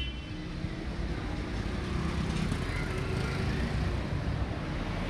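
Road traffic noise: motor vehicles running with a steady low rumble.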